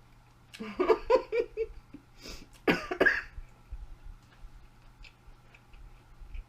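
A woman coughing on a mouthful of food: a quick run of short voiced bursts about half a second in, then two harder coughs around the three-second mark.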